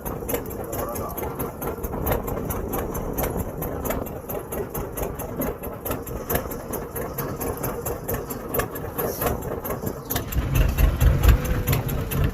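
Fishing boat's engine running at idle with a rapid clatter, a heavier low rumble swelling in about the last two seconds.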